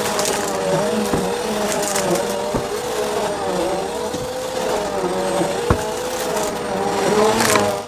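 Bissell CleanView vacuum running, its motor whine wavering and dipping in pitch, with scattered sharp clicks and crackles of debris being sucked up.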